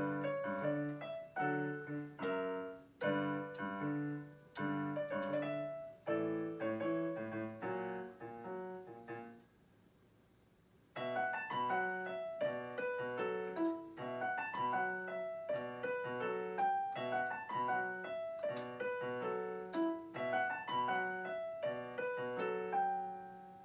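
Piano played solo, chords and a melody line, with a pause of about a second and a half midway before the playing resumes and closes on a held chord that dies away.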